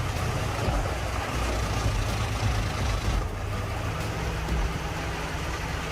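A large engine-driven wood chipping machine running steadily, with a low engine drone.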